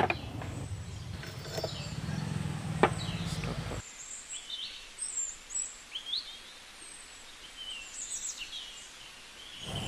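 A few sharp taps over a low rumble from pressing a crown race onto a fork steerer with a pipe, the loudest tap about three seconds in. After a sudden drop to a quieter background, birds chirp repeatedly.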